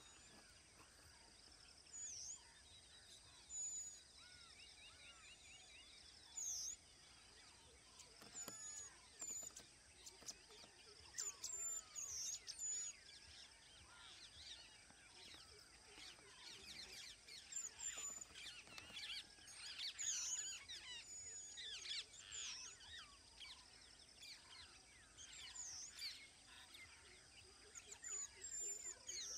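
Faint birdsong: several birds chirping and calling with many short, high whistled notes, some sliding up and down, over a steady high hiss.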